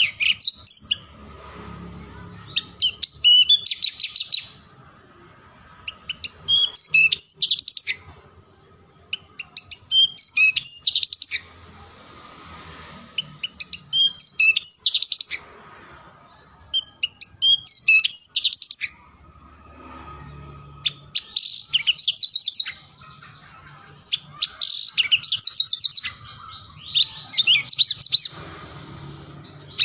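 Horsfield's bush lark (branjangan) singing in a cage: a string of about nine short, high, varied song phrases, one every three to four seconds, many ending in a rapid trill.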